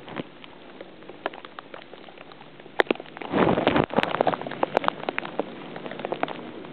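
Wind-driven blizzard snow pattering and ticking irregularly against the camera, over a steady hiss of wind, with a short gust rushing on the microphone about three and a half seconds in.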